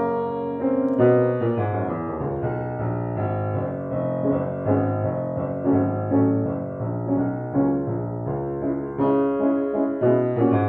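A 1937 Bechstein Model 8 upright piano played with both hands: a flowing passage of melody over chords, with a new note or chord struck every half second or so. It has a really lush sound, the instrument freshly regulated and voiced.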